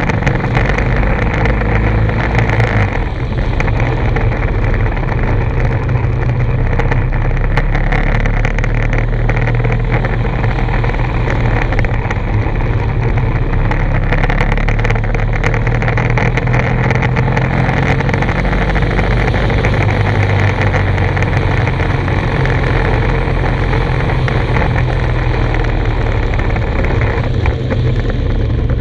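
Motorcycle engine running at low town speed, its note shifting up and down a few times, under a steady rush of wind noise over the microphone.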